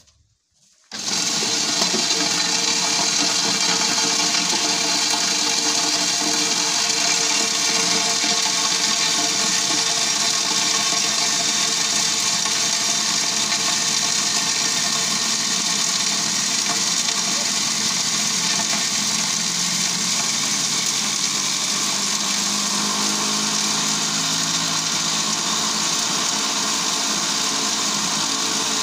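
Small motor-driven livestock-feed grinder with an aluminium grinding drum starting up about a second in, then running steadily at full speed while grinding dried cassava peels: a loud, even whine over a constant rushing hiss.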